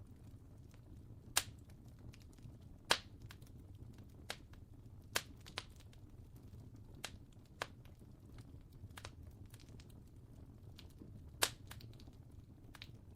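Fire crackling: irregular sharp pops and snaps, a few louder than the rest, over a low steady rumble.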